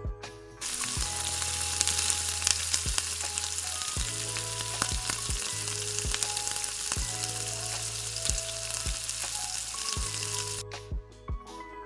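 Hot ghee sizzling in a miniature kadai, with cashews and raisins frying in it. The sizzle starts suddenly about half a second in and cuts off near the end, over soft background music.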